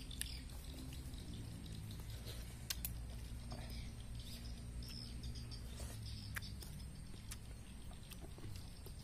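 Metal spoon clinking and scraping in a glass bowl while eating, a few sharp clicks scattered through, the strongest about three seconds in, over a steady low rumble.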